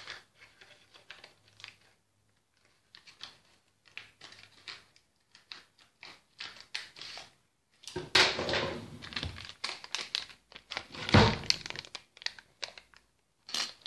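Scissors snipping and a plastic packet of hot elderberry drink crinkling as it is cut and handled, with a long rustle about eight seconds in and a loud thump about three seconds later.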